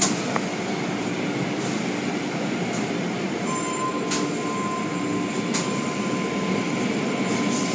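Automatic car wash machinery running: a steady mechanical rumble with water spray and a low hum, broken by a few short hisses. A thin steady whine joins about three and a half seconds in.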